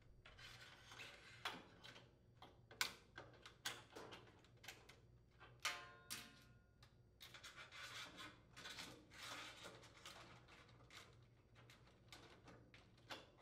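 Faint scraping and clicking of wires and plastic being handled as a new dryer light socket's wires are fed through the plastic drum slide bearing, with a short squeak about six seconds in.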